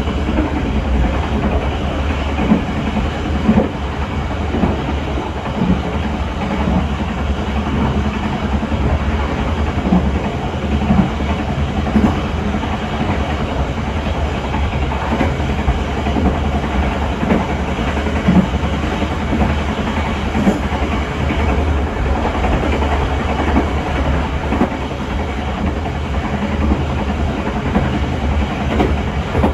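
Passenger train running at speed on the track: a steady low rumble and rushing noise with irregular clicks and knocks of the wheels over the rails.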